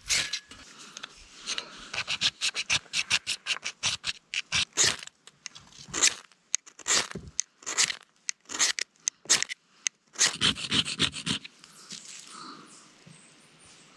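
Dry fire-starting tinder being crunched and snapped by hand: a fast, irregular run of crackles and snaps that dies down about eleven seconds in. Its crunchiness is the sign that the tinder is dry enough to light.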